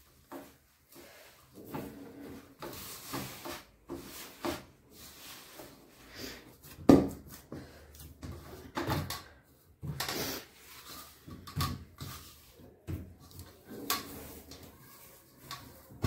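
Hand kneading spinach-paste dough in a stainless steel bowl: irregular pressing and rubbing with knocks of the bowl, the loudest thump about seven seconds in.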